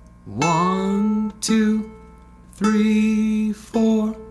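Ukulele's open A (first) string plucked with the thumb in a slow, steady beat, about four notes, while a man sings the counts along with it on a held pitch.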